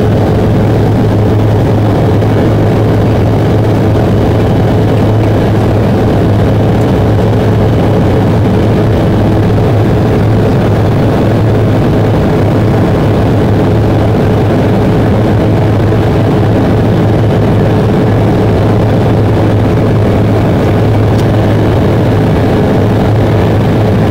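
Inside the cabin of an Embraer 170 climbing out after takeoff: the steady, loud drone of its General Electric CF34-8E turbofans and the airflow, with a constant hum held at one pitch.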